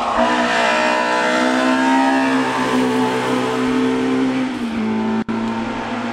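Engine of a Group H hill-climb race car running hard at high revs as it climbs, holding a nearly steady pitch. The pitch steps lower a little past four seconds in, and the sound cuts out for an instant about five seconds in.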